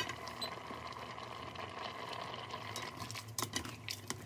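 Chicken-stock broth with orzo and meatballs simmering in a white enamelled pot while a metal spoon stirs it, with a sharp click of the spoon at the start and a few lighter clicks against the pot near the end.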